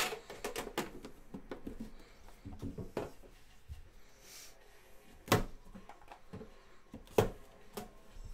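Hands handling a metal trading-card tin and the cardboard card boxes inside it: a quick run of clicks and knocks at the start, a few lighter taps, then two sharp knocks about five and seven seconds in as a box is set down.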